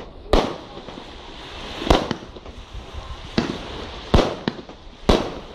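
Aerial fireworks shells bursting overhead: about six sharp bangs, roughly one to one and a half seconds apart, two of them weaker.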